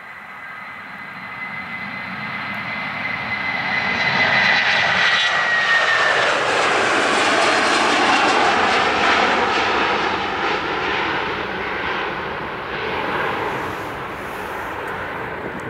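Jet engines of a United Boeing 757-200 at take-off thrust as it rotates and climbs out close by. A high fan whine drops in pitch as the aircraft passes, while the engine noise builds to its loudest about four to nine seconds in, then slowly fades as it climbs away.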